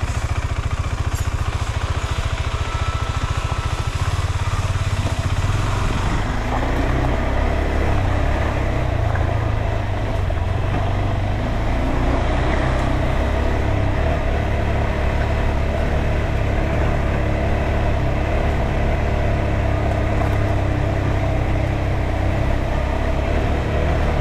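KTM 390 Adventure's single-cylinder engine running at low revs as the bike is ridden along a dirt trail. The engine note fills out and gets a little louder about six seconds in, then holds fairly steady.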